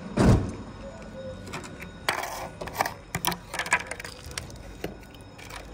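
A thump about a quarter-second in, then irregular sharp clicks and crackles from about two to five seconds in as a thin clear plastic food tray is handled and set down on paving.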